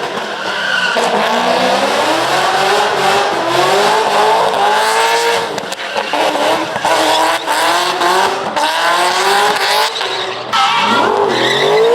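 Car doing a burnout: the engine is held at high revs, its pitch rising and falling again and again as the throttle is worked, over the hiss and squeal of the spinning rear tyres.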